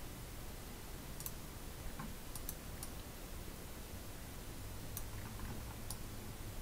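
Computer mouse clicking about seven times, light sharp clicks, some in quick pairs, over a faint steady room hiss and hum.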